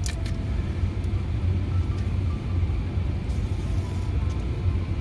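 Steady low rumble inside a car cabin, with a couple of light clicks near the start from handling a vape pod's packaging.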